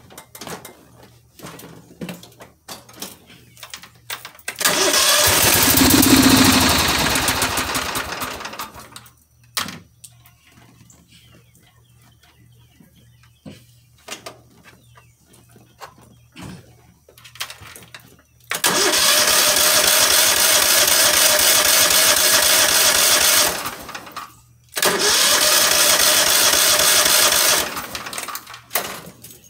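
A Cub Cadet HDS 2145 garden tractor's engine being cranked on its electric starter from a jump-starter pack, in three tries: about five seconds in, the first try briefly catches and dies away; two more cranks, near the middle and near the end, do not start it. The engine will not start.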